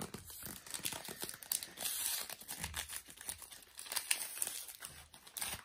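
Crinkling and tearing of a Panini Adrenalyn XL trading-card packet wrapper as it is opened by hand, with irregular crackles and a louder stretch about two seconds in.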